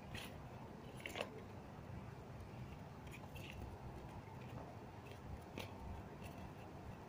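Faint, scattered clicks and crinkles from a small furry animal moving and nibbling in a nylon fabric basket with a lettuce leaf, the loudest click about a second in.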